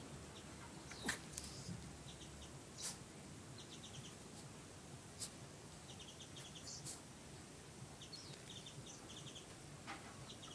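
Small birds chirping faintly in short, quick series of high notes, several times over, with a few brief sharp clicks, the loudest about a second in.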